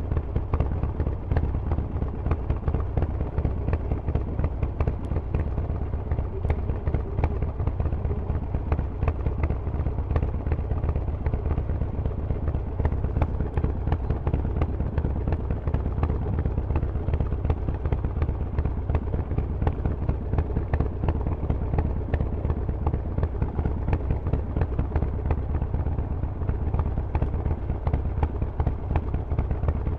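Harley-Davidson Forty-Eight's air-cooled 1200 cc V-twin running through Vance & Hines aftermarket exhaust pipes, with a steady, even exhaust beat and no big revs.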